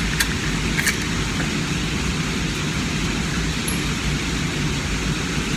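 Steady low rumbling outdoor noise, with two sharp metallic clicks in the first second from handling the pistol. No gunshot is heard.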